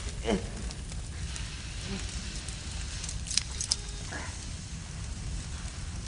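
Fire burning with a steady low rumble and hiss, with a few sharp crackles and snaps about three and a half seconds in.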